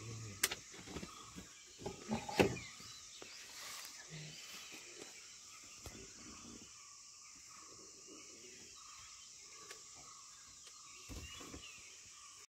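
Faint forest ambience: a steady high insect hum with scattered small bird chirps. A few sharp knocks come in the first couple of seconds, the loudest about two and a half seconds in.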